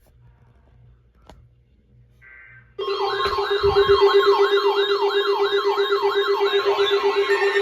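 An electronic siren-type alarm starts abruptly about three seconds in and stays loud. It is a fast warble sweeping up and down about three times a second over a steady buzzing tone.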